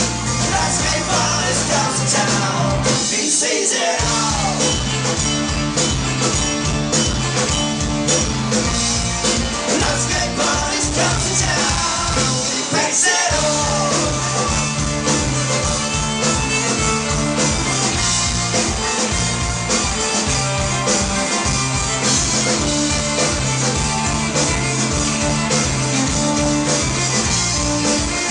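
Folk-punk band playing live and loud: drums, bass, guitars and fiddle under sung vocals, with a steady driving beat. The bass and drums drop out briefly twice, about three and thirteen seconds in.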